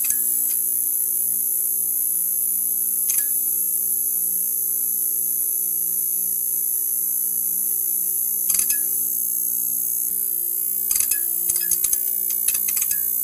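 Neon sign buzzing: a steady electrical hum with a high hiss above it, broken by sharp crackling ticks, once about 3 s in, a couple more about two-thirds through, and a quick cluster near the end.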